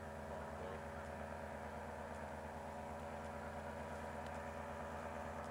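A faint, steady engine drone that holds one pitch throughout.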